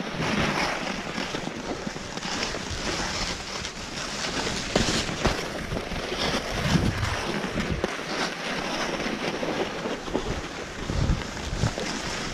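Alpine skis sliding and scraping over packed groomed snow at speed, with wind rushing over the microphone; a few low thumps, around the middle and near the end.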